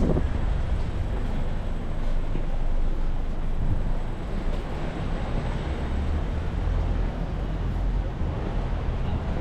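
Steady wind noise on the microphone and road noise from a moving bicycle, with city traffic behind.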